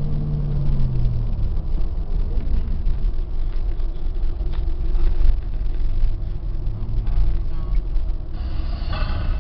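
Road noise and engine rumble of a vehicle on a highway, heard from inside the cabin, steady throughout. A low hum fades and drops in pitch about a second in.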